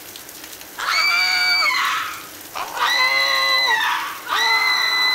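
A woman and a man screaming at each other in fright: three long, high screams, each held about a second, with short gaps between them.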